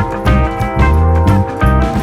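Background music with plucked guitar and a steady bass beat.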